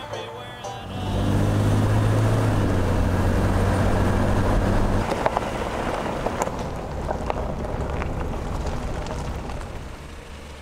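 A car engine running close by, a steady low hum for a few seconds. It gives way to rougher road noise with a few sharp clicks and drops off in level near the end.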